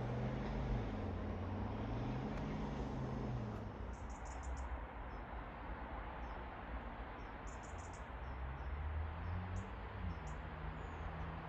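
Distant train engine running low and steady as a locomotive approaches, its note rising and falling, with birds chirping in short bursts from about four seconds in.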